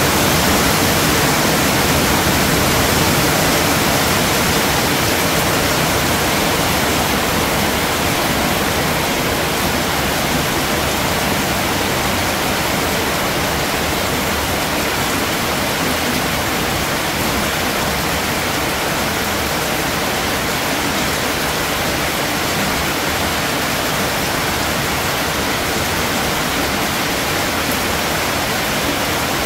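Heavy rain falling steadily: a dense, even hiss that softens a little over the first several seconds.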